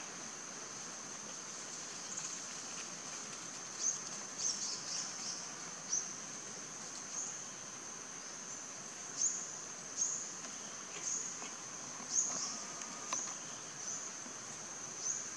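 Steady, high-pitched drone of forest insects, with short high chirps that sweep down, repeating about once a second.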